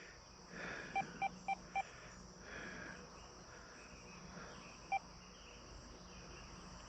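XP Deus II metal detector beeping as its menu settings are stepped through: four short, quick beeps about a second in, then a single beep near the five-second mark.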